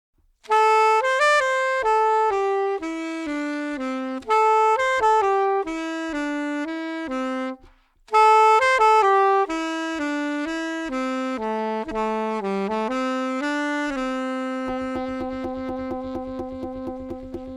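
A saxophone playing a slow melody in two phrases of stepping notes, with a short break between them, ending on a long held low note. A light backing beat ticks underneath and fills out near the end.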